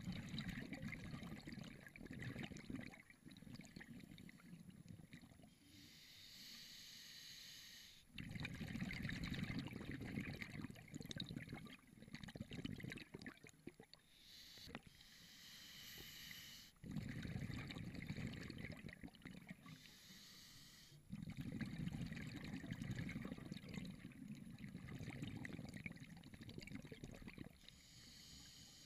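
Scuba regulator breathing underwater: long stretches of exhaled bubbles bubbling out, alternating with shorter hissing inhalations, about one full breath every eight to nine seconds.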